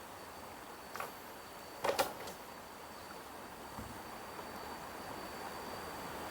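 Outdoor background with a steady thin high insect drone, broken by a short knock about a second in and a louder double knock about two seconds in.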